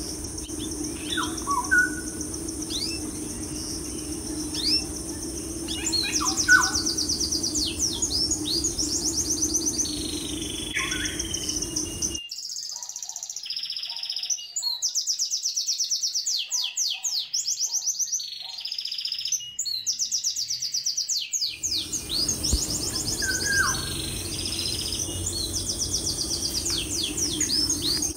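Small birds chirping and twittering, with quick high trills and short falling calls, over a steady low hum. The hum drops away for about ten seconds in the middle while the chirping goes on.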